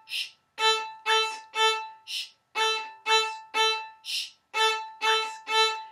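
Violin playing short, detached bow strokes on the open A string in a repeating rhythm: three quick notes, then a hushed "shh", about every two seconds.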